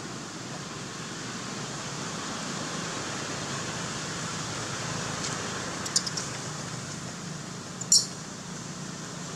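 A steady outdoor background hiss, broken by a few brief high squeaks from baby long-tailed macaques: a small cluster about six seconds in and a louder one near the end.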